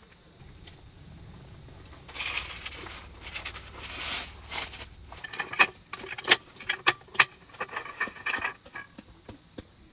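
A folding slatted wooden camping table being set up: rustling, then a run of sharp clacks and knocks as the frame and slats are handled and locked into place.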